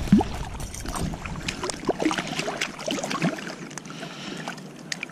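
Small splashes, drips and gurgles of shallow stream water as a hand handles a rainbow trout and puts it on a stringer, with many short separate water sounds over a faint stream hiss.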